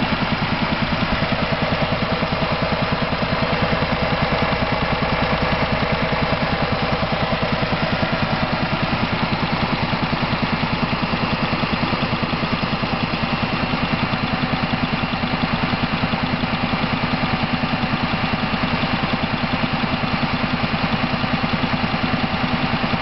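Mercedes-Benz A140 (W168) 1.4-litre four-cylinder petrol engine idling steadily with a fast, even pulsing. This is the strange noise the owner is asking about, its cause not yet known.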